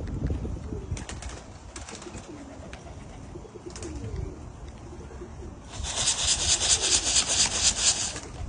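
Domestic pigeons cooing softly. About six seconds in, a loud, rapid fluttering noise takes over for a little over two seconds.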